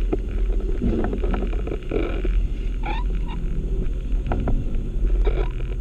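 Jet ski engine running under way, with wind buffeting the microphone and water splashing against the hull.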